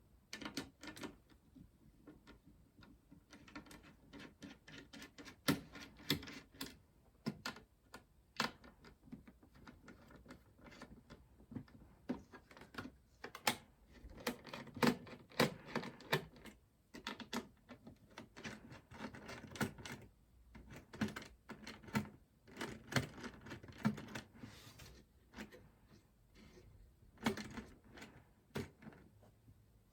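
Irregular clicks, taps and light knocks of hands handling a motherboard and its plastic packaging and parts, with busier stretches around the middle and near the end.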